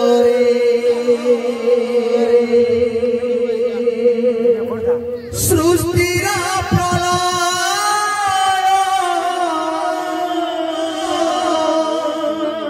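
Kirtan devotional singing: a singer holds long, wavering notes over steady sustained accompaniment. Drum strokes come in about five seconds in.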